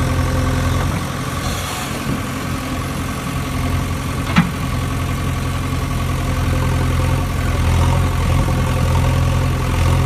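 An engine idling with a steady low drone, and one sharp click about four seconds in.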